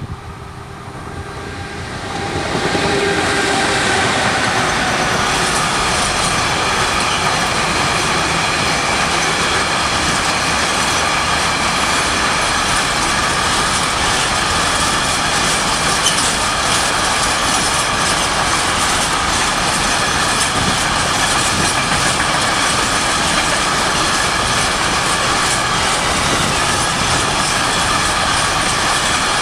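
A freight train hauled by an EU07 electric locomotive arrives, getting louder over the first three seconds, then its container-laden flat wagons roll past steadily, wheels clattering on the rails with steady high tones over the noise.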